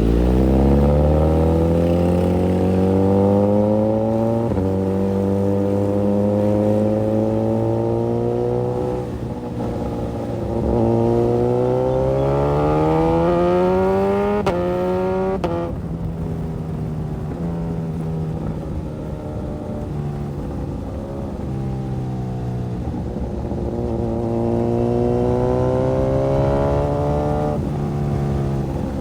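Suzuki GSX-S1000's inline-four engine under way, revs climbing and dropping back at several upshifts, with a steadier cruising stretch in the middle before it pulls up through the revs again.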